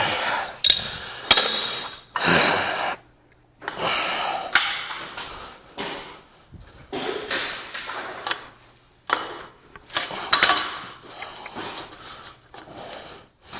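Intermittent clanks, knocks and scraping noises from threaded steel gas pipe and fittings being handled and worked, coming in short irregular bursts with a few sharp metallic strokes.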